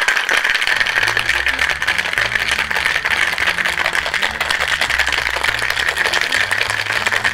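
Ice cubes rattling hard inside a stainless steel cocktail shaker, shaken without pause, mixing and frothing a whiskey sour with egg white.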